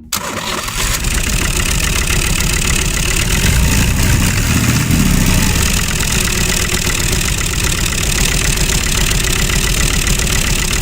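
A small motor running steadily, with a fast, even chatter throughout.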